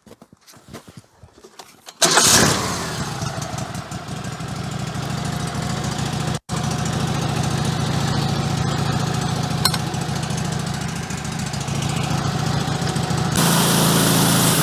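Wood-Mizer LT15 Go sawmill's engine starting abruptly about two seconds in, then running steadily. Near the end it gets louder and brighter.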